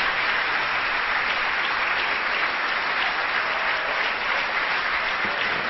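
A crowd applauding steadily.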